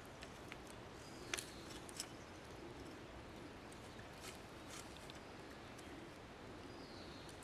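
Quiet outdoor ambience with a few faint light clicks, the clearest about a second and a half in, and a faint high falling chirp twice.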